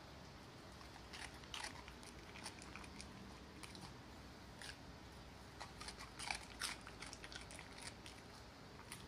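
West Highland White Terrier crunching and chewing a piece of raw cucumber, a string of irregular crisp crunches with short pauses between bites.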